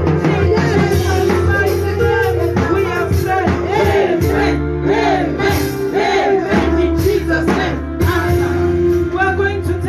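Worship music: sustained keyboard chords with voices over them.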